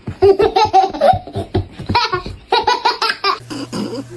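A young child laughing hard in quick, high-pitched bursts of giggles and belly laughs, which die down about three and a half seconds in.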